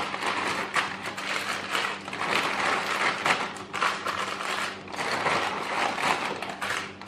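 Plastic zip-top freezer bags rustling and crinkling irregularly as small filled bags are handled and packed into a larger one.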